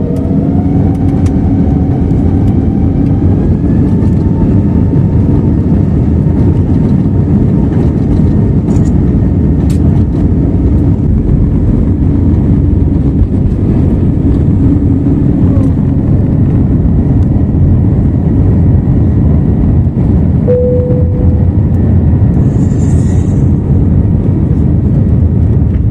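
Airbus A321neo turbofan engines spooling up to takeoff thrust, heard from inside the cabin. A rising whine over the first few seconds settles into a loud, steady roar for the takeoff roll, with one short tone about twenty seconds in.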